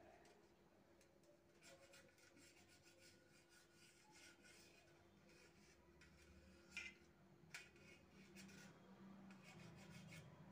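Faint rubbing and scraping of a table knife sawing through slices of sandwich bread, with two short clicks about two-thirds of the way through.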